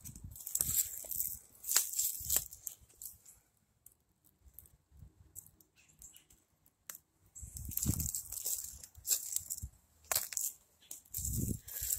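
Footsteps crunching through dry leaf litter and twigs, in uneven bursts of crackling with a soft thud at each step, pausing for a few seconds in the middle.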